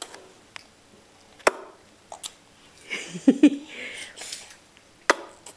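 A baby's short voiced mouth sound, low and wavering, in the middle, with sharp clicks about a second and a half in and again near the end.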